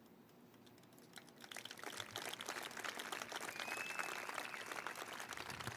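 Audience applauding: many hands clapping, starting about a second in, building up and then holding steady.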